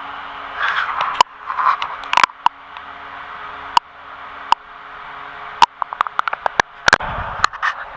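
Sharp clicks and knocks of metal tools and parts being handled during an engine teardown, coming at irregular intervals and bunching into a quick run about six to seven seconds in, over a steady low hum.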